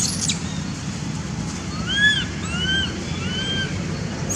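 Three short whistled calls, each rising then falling in pitch, about half a second apart, over a steady low hum.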